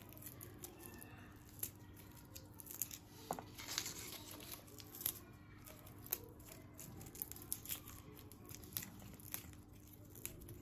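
Fingers peeling the papery skins off knife-smashed garlic cloves: faint, scattered crackling and rustling.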